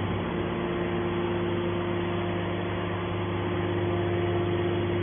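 200-ton hydraulic scrap baler's power unit running with a steady hum of constant pitch over a mechanical whirr.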